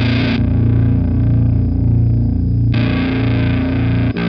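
Heavily distorted electric guitar, a Fender Jazzmaster tuned to drop B, playing a slow, heavy low riff through a Sunn Model T-style preamp pedal. The tone turns darker about half a second in and brightens again a little past halfway. There is a brief break near the end, then the riff starts again.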